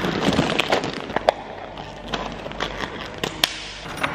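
A plastic cat food bag crinkling and rustling as it is handled, with many small sharp clicks and crackles from the dry kibble and plastic, and a few louder clicks.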